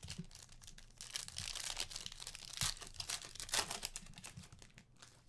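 Foil trading-card pack being torn open by hand, the wrapper crinkling and crackling as it is ripped and peeled back.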